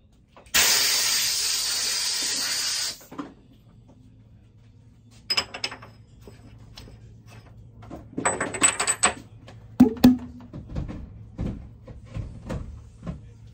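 A steady hiss lasting about two and a half seconds, starting and stopping abruptly, the loudest sound. It is followed by scattered metal clinks and knocks, some briefly ringing, as small brass parts are handled at a metal lathe's chuck.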